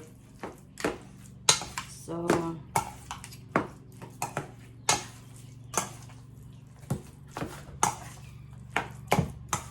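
Irregular clinks and knocks of a utensil against a mixing bowl, about one to two a second, as ground turkey is stirred together with its seasonings. A faint low hum runs underneath.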